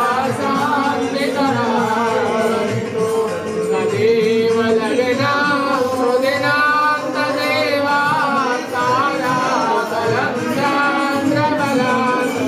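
Voices singing a Hindu devotional hymn in a continuous, gliding melody.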